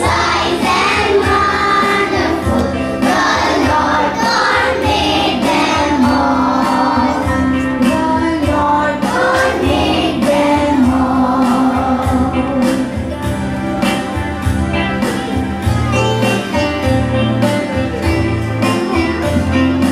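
A group of young children singing a song together into microphones over backing music with a steady beat. The voices drop away about twelve seconds in, leaving the music playing on.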